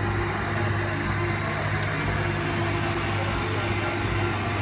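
Heavy asphalt patching machine's engine running steadily: a constant low drone with a held mid tone and a thin high whine above it.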